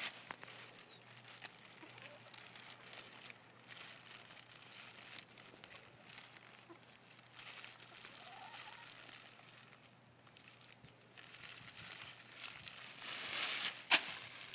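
Clear plastic bag crinkling and rustling as it is squeezed and tugged at to get it open, with a sharp snap near the end.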